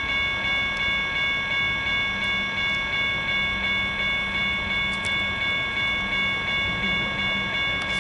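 Railway level-crossing warning bell ringing over and over, about one and a half strokes a second, as a train approaches.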